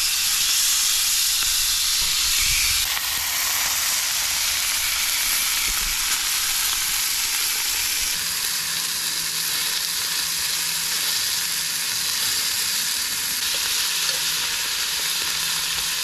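Steaks sizzling steadily in a pan over a campfire.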